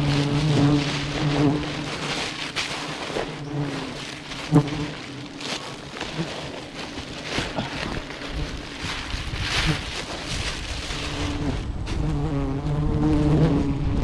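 Disturbed honeybees buzzing close around the microphone while a wild comb is being cut, with handling noise and one sharp knock about four and a half seconds in.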